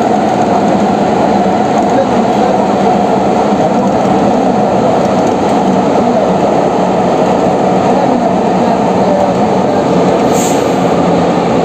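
Athens Metro Line 1 train (10th-batch stock) running, heard from inside the carriage: a steady, loud rumble of wheels and running gear, with a brief high hiss about ten seconds in.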